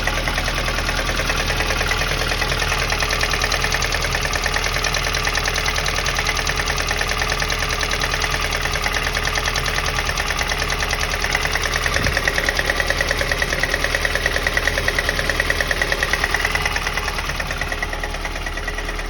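The 8-valve engine of a VAZ 2108 running with a fast, regular knock that keeps time with the engine. The knock grows stronger for a few seconds and eases near the end. The owner cannot tell what is knocking.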